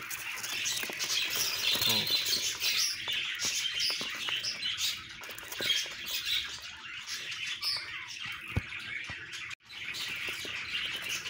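Budgerigars chirping and chattering, many short high calls overlapping without a break.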